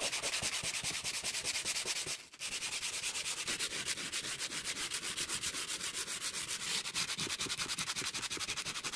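Hand sanding block with sandpaper rubbed back and forth over wooden floorboards. It makes fast, even scraping strokes, about eight a second, with a short break about two seconds in.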